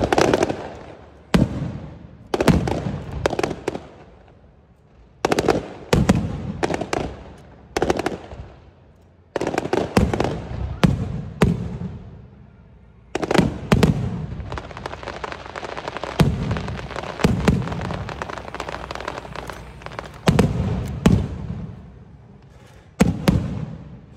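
Aerial firework shells bursting in quick clusters, each sharp bang trailing off in a rolling rumble. In the middle the bursts come thick, with a continuous crackling between them.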